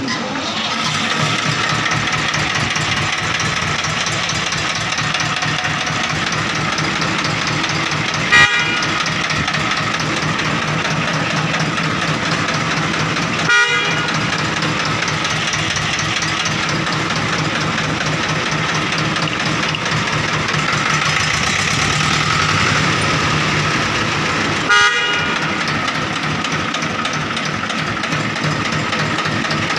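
HMT 2511 tractor's diesel engine running steadily while the tractor stands still. Three brief, sharper sounds stand out above it, about a third of the way in, near halfway and near the end.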